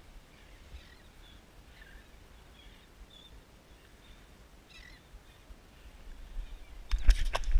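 Faint, scattered bird chirps over a low rumble. About seven seconds in comes a sudden burst of loud clicks and rattles.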